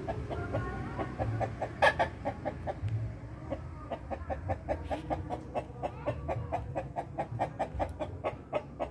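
Village chickens (ayam kampung) roosting in the rafters, giving a rapid, steady run of short clucks, about five a second, with one louder cluck about two seconds in.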